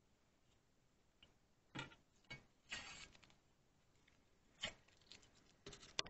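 Faint scattered taps and short scrapes, with a longer scrape about three seconds in and a quick run of small clicks near the end.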